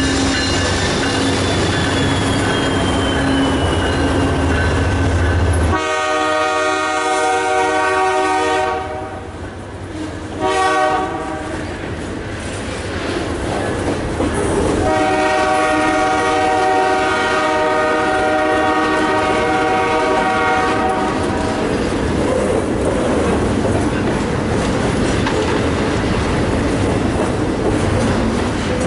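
Canadian Pacific double-stack intermodal freight train passing at speed: the lead GE AC44CWM diesel locomotives rumble by in the first few seconds, then the locomotive horn sounds three times, a long blast, a short one and a longer one. The container cars clatter over the rail joints throughout.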